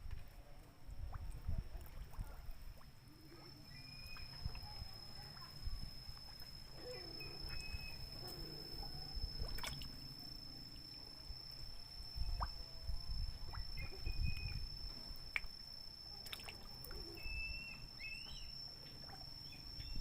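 Light water sounds, drips and small sloshes, with scattered clicks over a low uneven rumble and a steady high-pitched whine; a few brief chirps.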